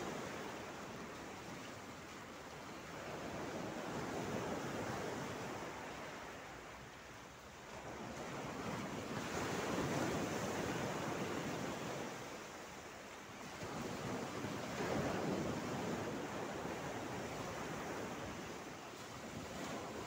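Mediterranean sea waves breaking on a flat rock shelf and washing back, a steady rush of surf that swells and ebbs with three larger surges.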